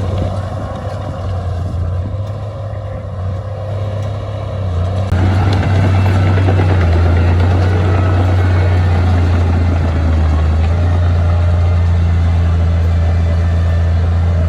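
Heavy diesel earthmoving machinery running with a deep, steady engine drone; about five seconds in it turns abruptly louder with a harsher, noisier rumble that then holds steady.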